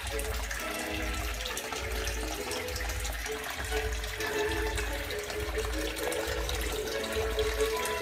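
Water running steadily down a small waterfall feature of a home hydroponic grow system.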